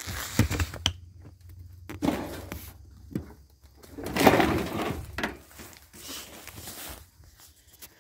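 Irregular crunching and rustling of footsteps through dry leaves, brush and debris, with a few sharp clicks and the loudest crunch about four seconds in.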